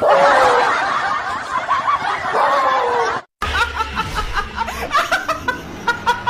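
People laughing, in two separate clips split by a sudden cut to silence about three seconds in; the second part is a quick run of short repeated laughs.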